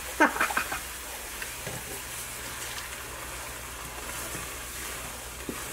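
Chicken stock poured into a hot skillet of lumpy flour roux, a few splashes in the first second, then a soft steady sizzle as the liquid simmers in the pan.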